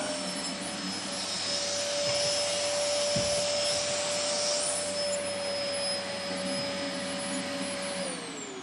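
Vacuum cleaner running steadily over stairs, its motor whining over a rush of suction, with a low bump about three seconds in. Near the end it is switched off and the whine falls in pitch as the motor winds down.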